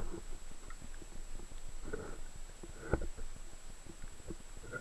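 Muffled underwater sound picked up by a camera in its waterproof housing: irregular low thuds and gurgles of moving water, the strongest about two and three seconds in, over a low hiss and a faint steady high tone.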